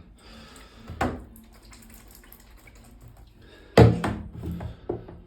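Thermostatic bar shower valve being worked by hand with no water coming out: a knock about a second in, a louder clunk with a short ring a little before the end, then a couple of small clicks. The valve is failing to deliver water on its first turn-on.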